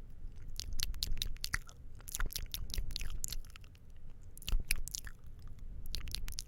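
ASMR mouth sounds close to the microphone: quick clusters of mouth clicks and smacks, with short pauses between the clusters.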